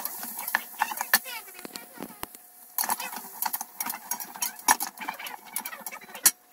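Metal slotted spatula scraping and clicking irregularly against a stainless steel pressure-cooker inner pot as chopped vegetables are stirred while sautéing.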